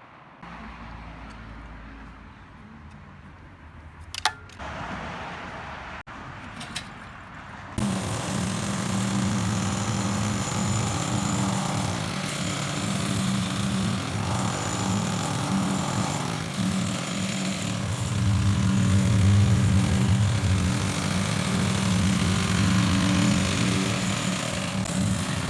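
Mini-excavator engine running steadily, starting abruptly about a third of the way in and getting somewhat louder in the second half. Before it there is a quieter stretch with two sharp knocks.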